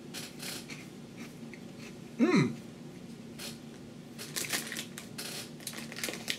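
Crunching and chewing of a light, airy puffed corn snack: scattered small crackles, thickest in the second half. About two seconds in, a short louder vocal sound that falls in pitch.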